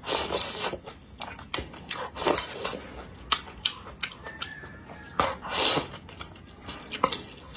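Close-miked slurping of noodles from a bowl of spicy soup, with chewing and small wet clicks between slurps. The longest slurp comes about five seconds in.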